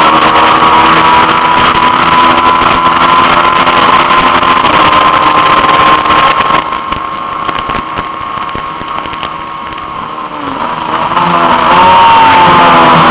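Honda CB500 parallel-twin race engine running at high revs under wind rush on the onboard microphone, its pitch climbing slowly. About six and a half seconds in, the throttle closes and the sound drops back while the revs fall. Near the end the throttle opens again and the engine returns to full volume.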